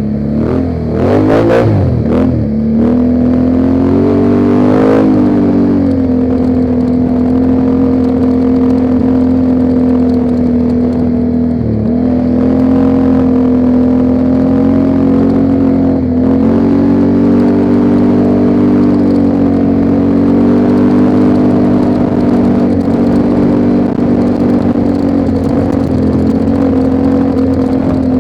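ATV engine accelerating over the first few seconds, then running at a steady cruising speed with a few brief dips in revs.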